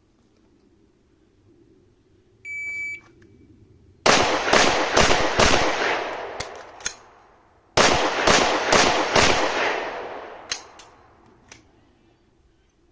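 A shot timer beeps once, then a pistol fires two quick strings of five shots each, with a pause of about two seconds between them. A few fainter clicks follow each string.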